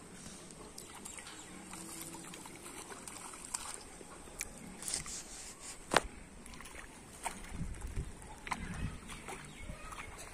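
A hooked fish splashing at the surface of a pond close to the bank, with scattered small splashes and clicks. A single sharp click about six seconds in is the loudest sound, and low rumbling comes in during the second half.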